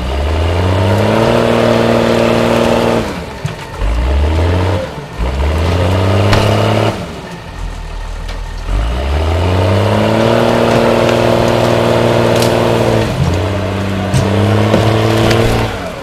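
Diesel engine of a wheeled log skidder revving up, holding high revs and dropping back again, over and over as it works a large log.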